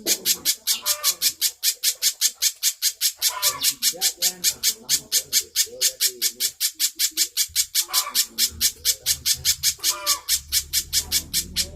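Spiderhunter calling steadily: a fast, even series of short, high, sharp notes, about six a second.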